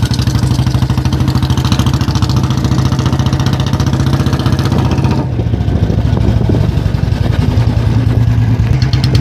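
Royal Enfield Bullet's single-cylinder engine, fitted for a heavy 'dug dug' exhaust sound, running as the bike is ridden, a steady beat of firing pulses. About five seconds in the sound softens and loses its higher hiss.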